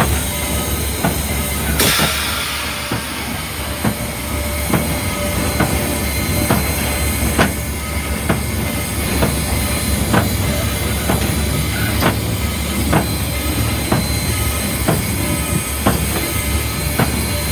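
Cab sound of Southern 4501, a 2-8-2 Mikado steam locomotive, under way: a steady low rumble with a light click about once a second. A burst of hiss comes about two seconds in.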